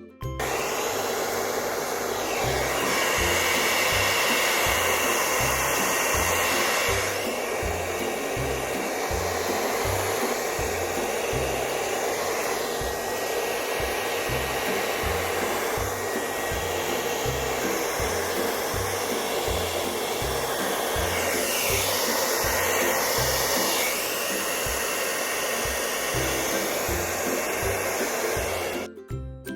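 Hand-held hair dryer fitted with a concentrator nozzle, blowing air steadily as a stand-in for a heat gun to push wet epoxy resin into waves. Its sound shifts a few times, about seven seconds in and again around twenty-one to twenty-four seconds.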